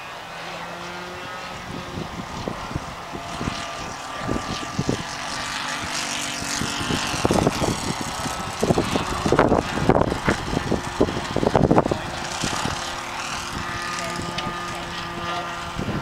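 Engine of an RC Mustang model airplane droning steadily as it flies around the field. Gusts of wind buffet the microphone, loudest in the middle as the plane passes low.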